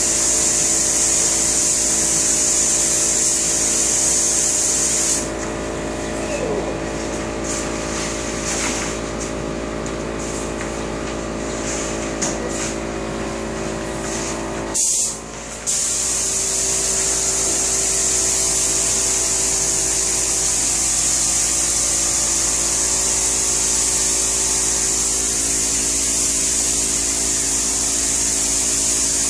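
Compressed-air spray gun hissing as it sprays a clear finish coat onto kitchen cabinets. The hiss stops about five seconds in, gives a few short bursts, and starts again about sixteen seconds in. A steady machine hum runs underneath.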